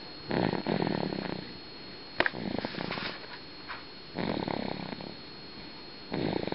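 Snoring: four rattling snores, one every couple of seconds, with a brief sharp click about two seconds in.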